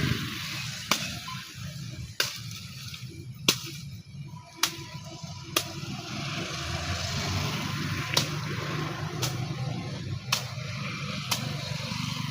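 Sugar cane stalks being cut by hand with a blade: a run of sharp chopping strikes, roughly one a second.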